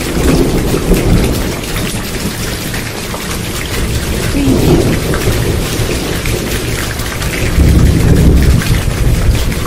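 Heavy rain falling steadily, with rolls of low thunder rumbling over it: one near the start and a louder one toward the end.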